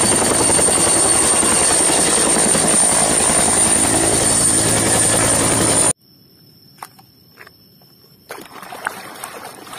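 A turbine helicopter with a two-bladed main rotor hovering close by. The rotor beats steadily under a high, steady turbine whine, and the sound cuts off suddenly about six seconds in. After that come only a few faint clicks.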